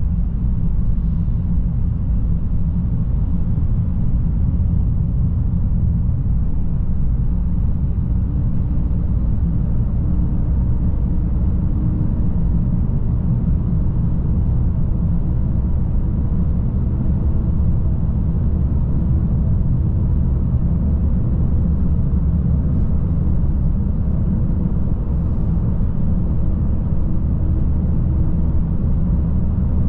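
Steady low rumble of a Citroën car driving through a road tunnel, heard from inside the cabin: continuous tyre and engine noise with no change in pace.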